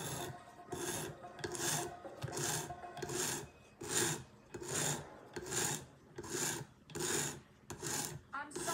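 Sharpening stone on a guided-angle rod system, stroked along a small pocket knife's blade clamped in the jig: a rhythmic rasping scrape, about one stroke every 0.8 seconds.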